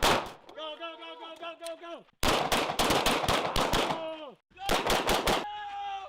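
Pistols fired in rapid strings of shots, several quick shots at a time, with raised voices shouting between the strings.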